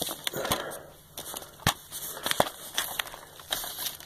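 A plastic DVD case and its discs being handled: a string of light clicks and taps with some rustling.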